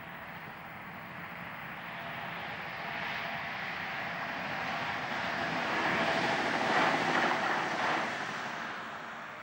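Alstom Regio-Citadis tram-train running past on the railway line: a rushing rolling noise that grows louder as it approaches, is loudest about seven seconds in as it passes close, then fades.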